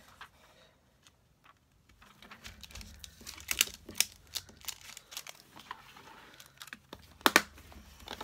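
Hands handling clear plastic stamps, an acrylic stamp block and a clear stamp sheet: plastic crinkling and light clicks and taps. The sounds start about two seconds in and carry on irregularly, with a couple of sharper clicks near the end.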